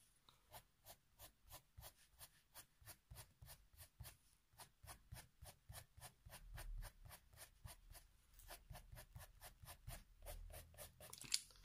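Faber-Castell Polychromos coloured pencil hatching on paper: faint, quick, even scratching strokes, about four a second, with one sharper tick near the end.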